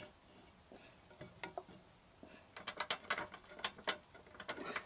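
Metal clicking and clinking as the swing arm is worked into the motorcycle frame and the first pivot bolt goes in. A few faint clicks come first, then a quick irregular run of sharp clicks from about halfway.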